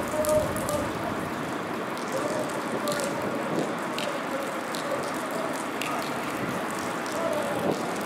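HŽ series 2041 diesel shunting locomotive running as it approaches slowly: a steady engine sound with a faint wavering whine, and scattered light clicks.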